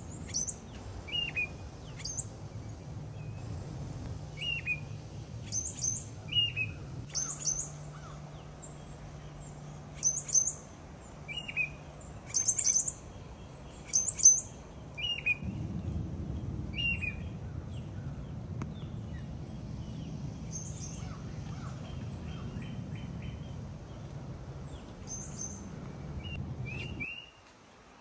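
Tufted titmice calling: short, sharp, high-pitched notes repeated at irregular intervals, about one a second, some very thin and high and others lower and slurring down. A low steady rumble runs under them in the second half.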